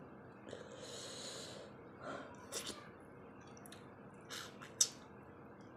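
Close-up eating sounds of a person eating fish with his fingers: a breath, then several short wet clicks of chewing and lip smacking, the sharpest near the end.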